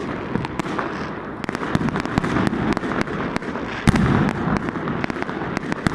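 Many fireworks going off at once: a continuous rumble of overlapping bursts, dense with sharp cracks, and a heavier boom about four seconds in.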